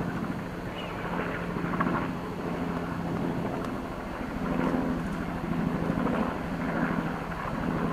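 Helicopter flying low overhead: a rapid, steady beating of the rotor blades over a low engine hum.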